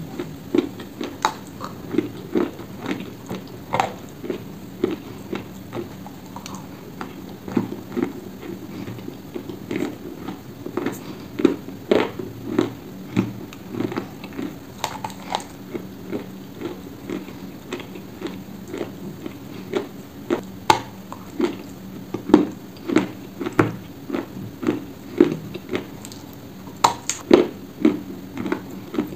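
Close-miked chewing of dry Ural black edible clay: a steady run of crisp crunches and crackles, about one or two a second.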